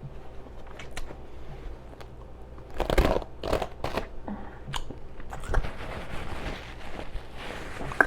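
A person chewing a mouthful of burger and fries close to the microphone, with loud mouth smacking and sharp clicks, loudest in a cluster about three seconds in.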